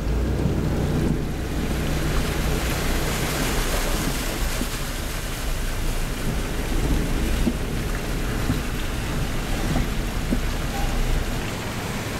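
Hurricane wind and rain noise: a steady rushing with a deep low rumble that comes in abruptly at the start and holds throughout.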